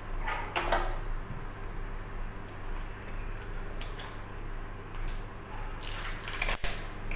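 A cardboard product box being handled and its seal slit with a small box cutter: scattered scrapes and light taps, busiest just under a second in and again near the end.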